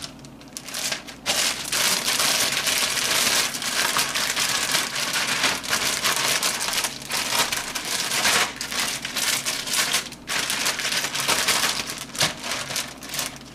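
Clear plastic zip-top bag crinkling and rustling as it is shaken and squeezed to mix pieces of pork loin with marinade. The rustling is near-continuous, with a few short breaks.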